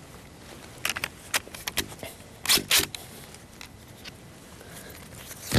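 Handling noise from a hunting gun, its sling and a winter coat: small clicks and rustles, then two louder rustles close together about two and a half seconds in.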